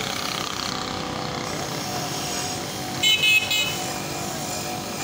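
A bench grinder's wire brush wheel runs steadily while an old metal engine part is held against it to scour it clean. About three seconds in, a brief, loud, high-pitched double tone cuts through.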